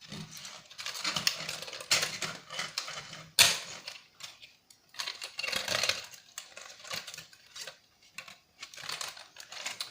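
Small plastic and metal drone parts clicking and rattling in irregular bursts as they are handled and pulled apart, with one sharp click about three and a half seconds in.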